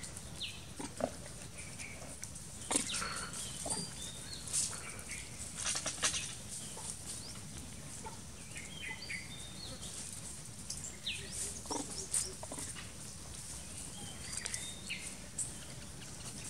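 Long-tailed macaques giving scattered short, high squeaks and grunts, mixed with small clicks and scuffs.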